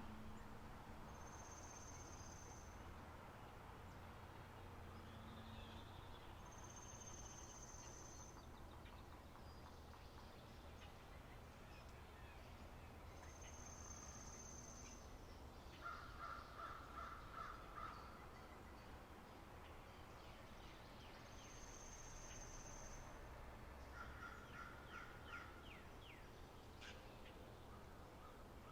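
Faint spring meadow birdsong ambience. A high, thin whistled note held about a second and a half repeats every six to eight seconds, and a rapid trill comes in twice, with quick ticking notes around the second trill.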